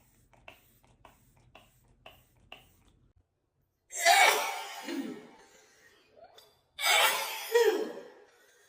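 A woman sneezing twice, loud and sudden, about three seconds apart, each sneeze ending in a voiced cry that falls in pitch: part of a sneezing fit. Before them, a few faint short sounds.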